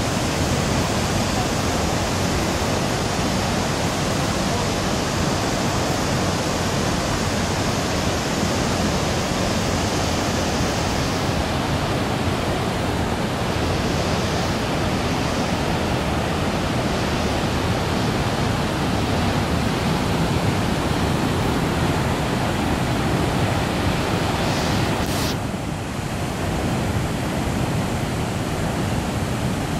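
Waterfall: a loud, steady rush of falling water. The rush briefly dips about 25 seconds in.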